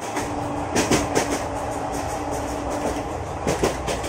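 Inside a moving passenger train carriage: a steady rumble and hum, with clusters of wheel clicks over the rail joints about a second in and again near the end.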